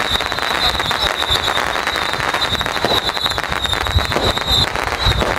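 A string of firecrackers crackling in a rapid, continuous run of pops, over a steady high-pitched tone that fades near the end.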